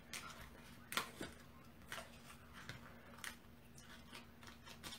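Faint rustles and light taps of cardstock pieces being handled and lifted, a few short ones spaced about a second apart, over a faint steady hum.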